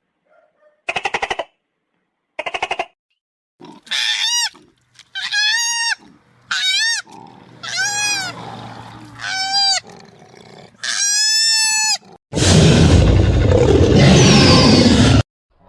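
A run of different animal calls: two short rattling bursts, then six short high calls that each rise and fall in pitch, then a loud, harsh, noisy call lasting about three seconds near the end.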